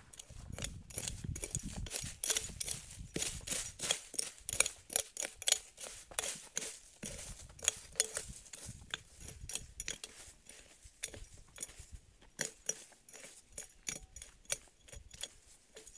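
Short-handled hand hoe striking and scraping through dry leaf litter and soil in quick repeated strokes, about two to three a second, heavier in the first half.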